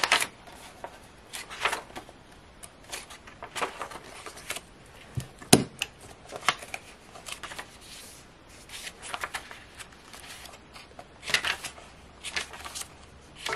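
Paper planner inserts rustling and flapping as they are leafed through and lifted off a ring binder's metal rings. About five and a half seconds in there is one sharp metallic snap as the binder rings are opened.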